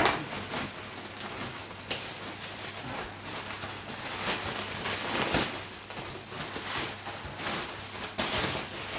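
Plastic courier satchel and bubble wrap crinkling and rustling continuously as a parcel is pulled out and unwrapped by hand, with a sharp crackle right at the start.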